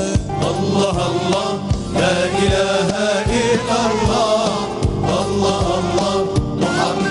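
Male singers chanting an Algerian religious inshad medley with choir and band accompaniment, a steady beat underneath the melismatic vocal line.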